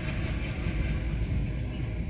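Twin WDP1 diesel locomotives chugging as the train pulls away, over a heavy low rumble of the train running on the track.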